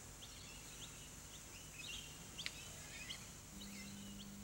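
Faint birds chirping, with short quick calls repeating every half second or so over a steady high hiss. A single sharp click comes about halfway through, and a low steady hum comes in near the end.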